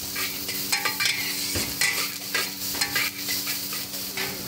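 A metal ladle scraping and clanking against a wok as vegetables are stir-fried, with steady sizzling underneath. Sharp, briefly ringing strokes come about every half second over a steady low hum.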